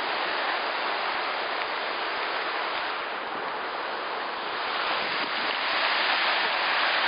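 Waterfall rushing steadily, a constant hiss of falling and flowing water.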